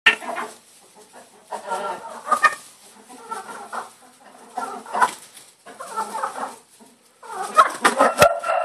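Several domestic hens calling in repeated short bursts as they squabble over a worm. A few sharp knocks come near the end.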